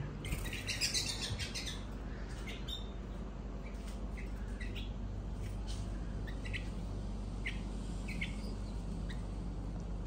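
Fledgling songbird chicks chirping: a dense run of high chirps in the first second or two, then short single chirps every half second or so, the calls young birds use to call the others to them.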